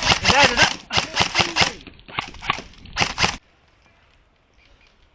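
Airsoft rifle firing rapid strings of shots, a fast even rattle of about seven shots a second, with voices mixed in; it stops abruptly about three and a half seconds in, leaving faint outdoor background.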